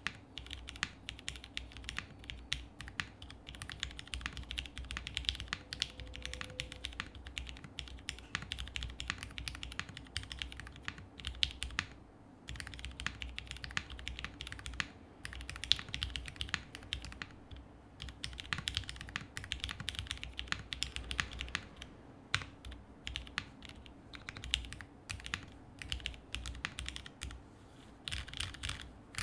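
Continuous fast typing on a Polaris custom mechanical keyboard with lubed and filmed Cherry Hyperglide Black linear switches on an FR4 half-plate, with CRP keycaps and lubed Zeal stabilizers, the keys clacking in quick runs with a couple of brief pauses.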